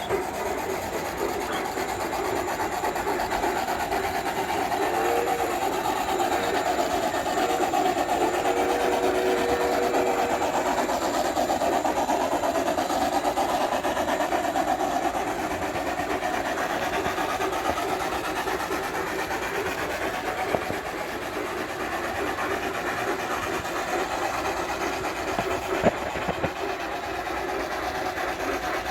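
Several model trains running on the layout's tracks at once: a steady whirring and rattling of motors and wheels on rail, with a couple of sharp clicks near the end.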